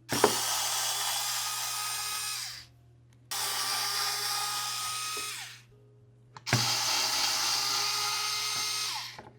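Electric precision screwdriver with a 1.5 bit running three times in a row, each run lasting two to three seconds, as it backs out three small heat-sink screws from the controller's circuit board.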